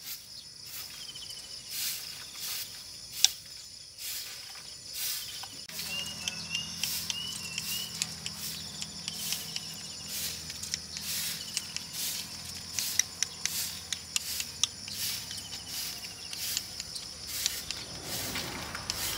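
Female Fischer's lovebird making quick, irregular clicks, with a few short wavering chirps about six to eight seconds in.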